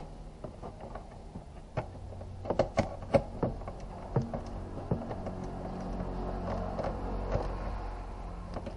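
Plastic wheel-arch liner being handled and pushed back into place behind the tyre: a run of clicks and knocks, the loudest a cluster about two to three seconds in, over a steady low hum.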